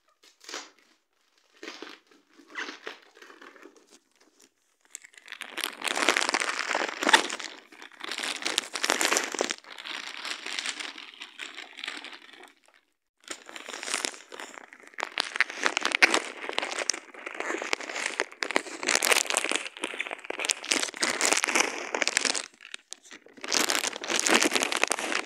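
Plastic parcel packaging and bubble wrap crinkling and rustling as a parcel is opened by hand: a few faint handling noises at first, then long loud bouts of crinkling with short pauses, one about halfway and one near the end.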